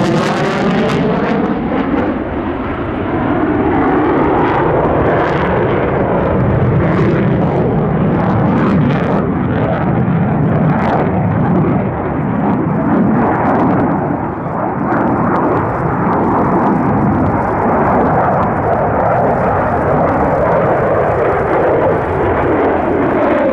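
Loud, continuous jet noise from the twin J79 turbojets of an F-4EJ Kai Phantom II flying a display maneuver, with a sweeping, phasing quality at the start and again near the end as the jet passes close.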